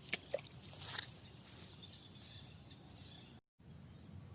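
Faint outdoor ambience with a few soft clicks and knocks in the first second, cut by a brief total dropout near the end.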